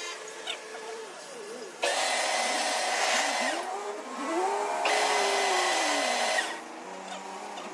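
A power tool run in two sharp bursts of about a second and a half each, a hissing, whirring noise that starts and stops abruptly.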